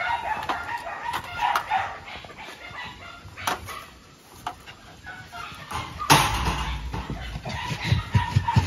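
Broom bristles and a long-handled metal dustpan scraping and knocking on a concrete floor, with animal calls mixed in during the first couple of seconds. Louder thumps and knocks come in the second half.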